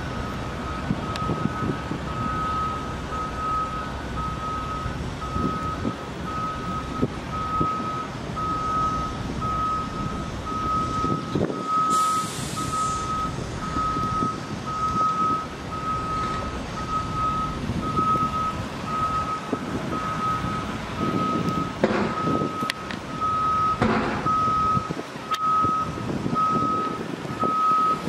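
A vehicle's backup alarm beeping steadily on one pitch, about one and a half beeps a second, over a low outdoor rumble. A brief hiss comes near the middle.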